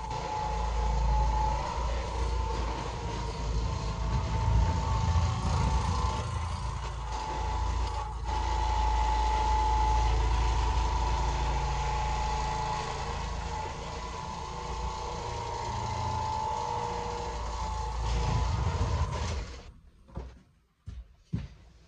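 Oreck Orbiter orbital floor machine running, its motor humming steadily with a low rumble as the spinning pad scrubs the carpet. It switches off near the end, followed by a few light knocks.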